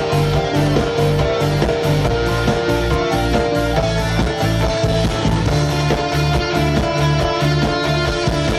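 Live rock band playing through a stage PA: electric guitar and strummed acoustic guitar over bass guitar and drums, with a steady beat.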